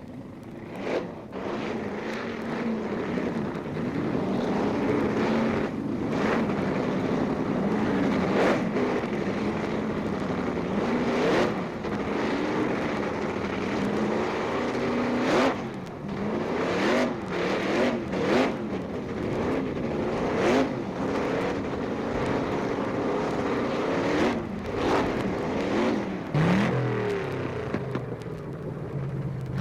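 Drag-racing engine running unevenly between repeated sharp throttle blips, its pitch jumping up and dropping back about a dozen times.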